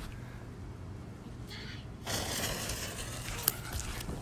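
Consumer firework shell going off: a hissing rush starts about halfway through, with a single sharp crack near the end.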